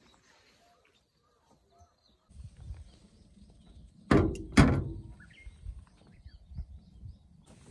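Two solid knocks about half a second apart as a drinks can is set down on a ridged painted-metal surface, over a low rumble.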